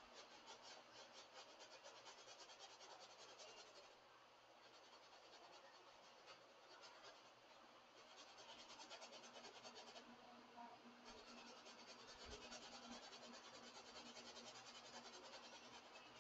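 Faint scratching of a paintbrush on canvas in quick, fine strokes, coming in stretches with short pauses, over a low steady hum.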